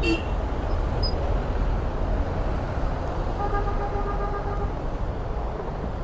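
Steady low rumble of motorcycle and road traffic noise. Just past the middle a vehicle horn sounds once, held for a little over a second.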